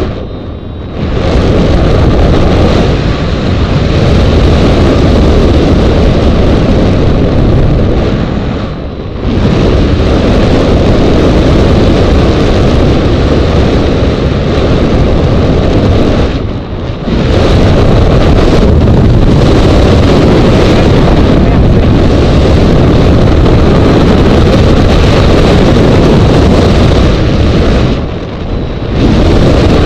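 Wind noise from air rushing past the microphone of a camera mounted on a hang glider in unpowered flight. It is loud and steady, with four brief dips in level.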